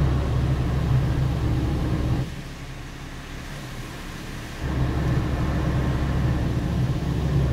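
Water spray from a Kondor touchless automatic car wash hitting the van, heard from inside the cabin as a steady rushing rumble. It falls away about two seconds in, then comes back about two and a half seconds later.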